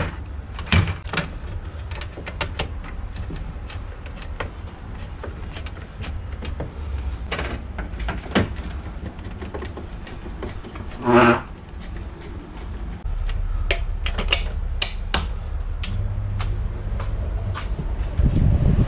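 Scattered clicks, taps and knocks of parts and tools being handled during an air-conditioner repair, over a steady low hum.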